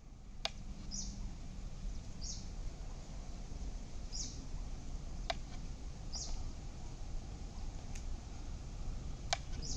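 A bird gives a short high chirp about every two seconds over steady low background noise. Four sharp clicks come from a knife against a steel plate as cooked egg is cut.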